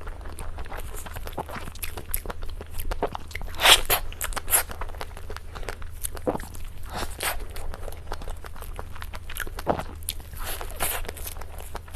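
Close-miked mukbang eating of cake: biting and chewing with irregular crisp crunches and wet clicks, the loudest bites about four seconds in and again near the end. A steady low electrical hum runs underneath.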